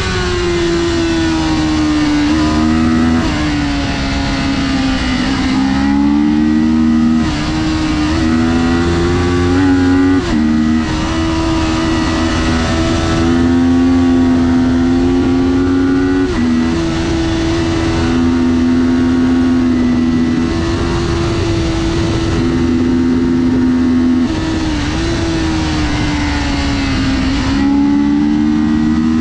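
Kawasaki Ninja 400 parallel-twin engine at race pace, held at high revs. Its pitch rises, then dips briefly every few seconds as the rider shifts gears and rolls off and back on the throttle through the corners.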